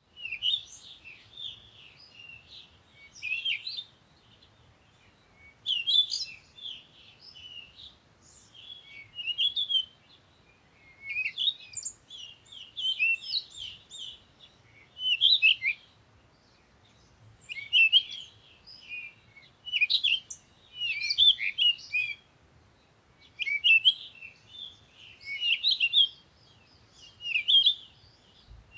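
Bird song: a songbird repeating short phrases of quick, varied, high chirping notes, each phrase a second or two long, with brief pauses between.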